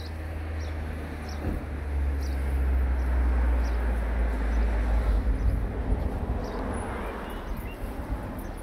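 Outdoor ambient noise: a low rumble that swells over a few seconds and then fades, with faint short high chirps about once a second.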